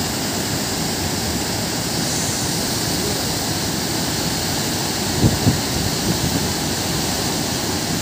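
Waterfall: a steady, even rush of falling water, with two brief louder sounds about five seconds in.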